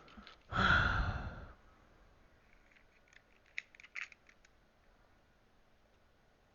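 Hand-tool work on a carpet cleaner's chewed power cord: a brief loud rustling rush, then a quick run of sharp snips and clicks as the cord's wires are cut and stripped.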